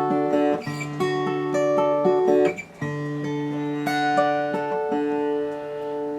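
Espana acoustic guitar playing first-position open chords with the notes picked out one after another, changing chord about every two seconds. The guitar has a new compensated nut and saddle, and the chords ring in tune.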